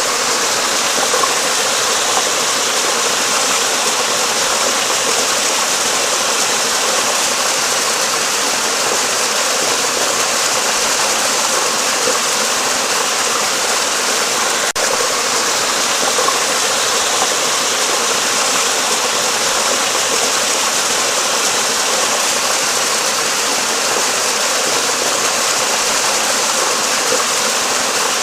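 Flowing water rushing steadily, as of a stream running under a bridge: an even hiss with little low rumble, broken only by a short dip about halfway through.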